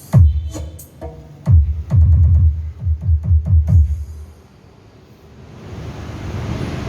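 Electronic music with deep bass hits that drop in pitch, played through a 15-inch Crown JH-157 subwoofer in a subscoop box; a quick run of hits ends about four seconds in. A steady rushing background noise then swells up.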